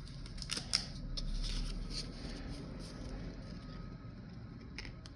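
Pokémon trading cards being slid and flipped one behind another in the hand: a run of light clicks and rustles over the first couple of seconds, and a few more near the end, over a low steady hum.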